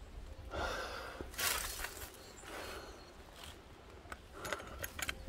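A hiker's heavy breaths and scuffing steps on the mountain descent, with a few light clicks near the end, over a steady low wind rumble on the microphone.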